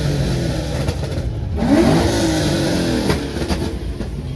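Car engine revving over a steady low rumble, its pitch rising about two seconds in.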